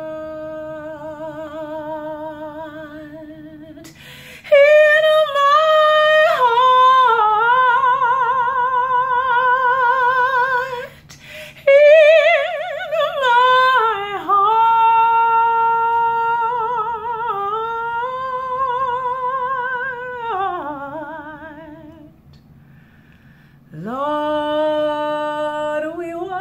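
A woman singing solo and unaccompanied in long, slow held notes with wide vibrato, sliding between pitches. About three-quarters of the way through she breaks briefly, then a new phrase slides up into a held note.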